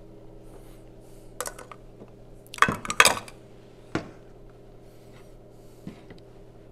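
Stainless steel mixing bowl and wire sieve clattering as they are handled and set down on a table: a few sharp metallic clinks and knocks, the loudest pair about three seconds in.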